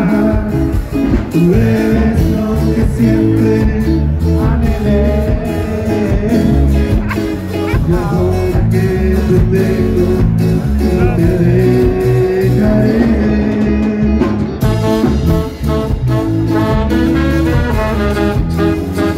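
Live ska band playing loudly, with drums, bass and a saxophone horn section.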